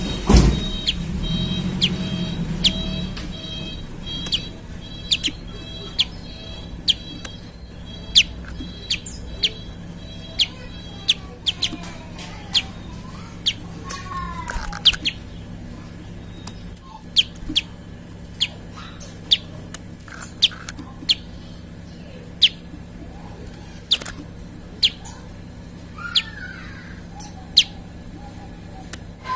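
Prinia (prenjak) calling: short, sharp chirps repeated roughly once a second with a few sliding notes mixed in, over a steady low hum.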